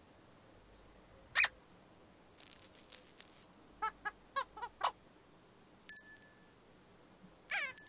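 Playful cartoon sound effects accompanying Igglepiggle's movements: a short squeak, a brief rattle, a quick run of about five chirping notes, then a bright chime-like ring that fades, with another ring and chirps near the end.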